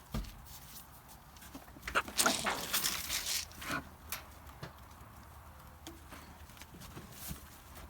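A sheep bleating, in a short run of calls from about two to four seconds in.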